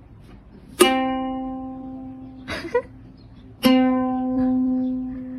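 A single plucked string note, sounded twice about three seconds apart at the same pitch, each ringing and fading slowly. A short, rough sound comes between the two notes.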